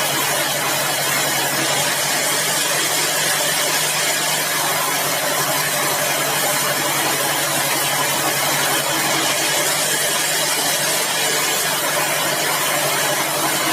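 Sawmill machinery running steadily: a constant engine hum under an even hiss, with no change in load.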